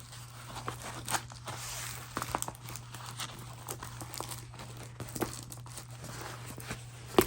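Crinkling and rustling of a diamond painting canvas and its plastic wrapping as it is handled and unrolled, with scattered small clicks and a sharper tap near the end.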